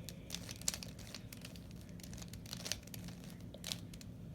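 3x3 Rubik's Cube being turned by hand: a run of quick, irregular plastic clicks and clacks as the layers are twisted, over a low steady hum.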